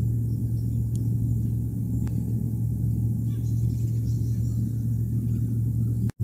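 A steady low hum on one constant low tone, with a few faint clicks over it. It cuts out for an instant near the end.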